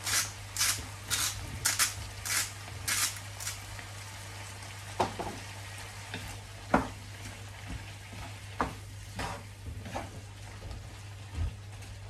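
A hand-twisted salt grinder cracking salt over a frying pan, about two crisp turns a second for the first three seconds or so. It is followed by a wooden spatula stirring and scraping beef and onions in the pan, with a faint sizzle of frying underneath.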